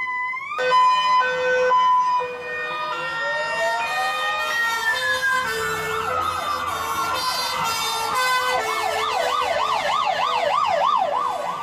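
Fire engine sirens: a two-tone siren stepping between a high and a low note about once a second, overlaid by slow rising and falling wails, then a fast yelp siren sweeping up and down about three times a second near the end. A theremin's wavering note cuts off about half a second in.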